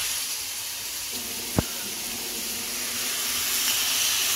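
Kimchi and vegetables frying in a pan, a steady sizzle, with one sharp knock about one and a half seconds in.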